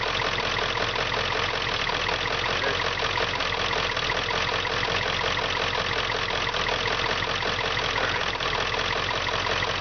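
Vehicle engine idling roughly with a steady, fast pulsing beat; the rough idle is put down to a wiring harness fault.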